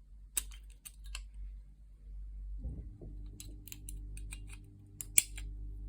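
Light metallic clicks from an old Godrej two-lever cabinet lock's mechanism as a key is turned and the second latch moves out, a few at the start, more in the second half, with the sharpest click near the end.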